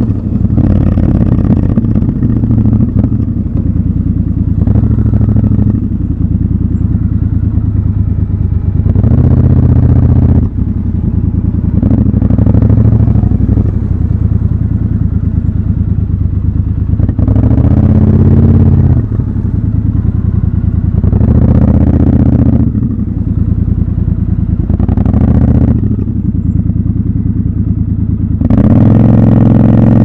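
Triumph Scrambler 1200 XC's parallel-twin engine running through city riding, with short surges of throttle every few seconds and easing off between them. Near the end it accelerates with a clearly rising pitch.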